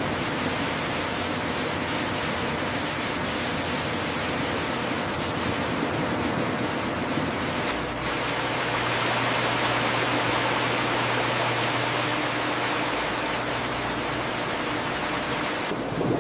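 High-pressure water sprays rushing steadily over sweet potatoes on a washing line, with a low machine hum coming in under the spray about halfway through.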